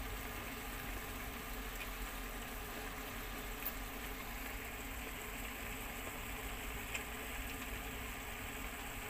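Steady background room noise: a low hum under a hiss, with a few faint clicks.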